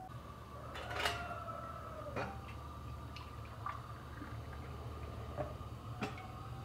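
Boiling water poured from an enamel kettle into a cut-glass tea glass, with a few light clinks and knocks of kettle and glass over a steady low hum.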